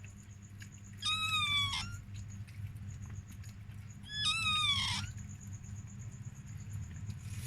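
Two high-pitched whining cries from a dog, one about a second in and one about four seconds in, each under a second long and sliding down in pitch, over a steady low hum.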